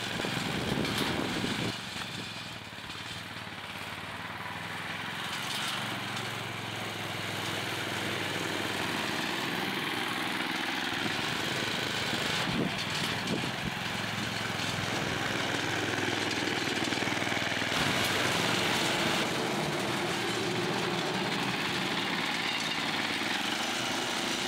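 Walk-behind tractor's small petrol engine running as the converted mini-tractor pushes snow with its front blade, its pitch rising and falling with the throttle. The sound changes abruptly at a few points.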